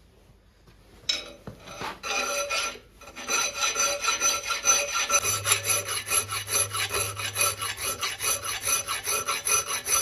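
A hand file rasping on the steel of a forged knife blade held in a leg vise, smoothing the jagged finger choil. A short run of strokes about a second in, a brief pause, then steady, quick back-and-forth strokes.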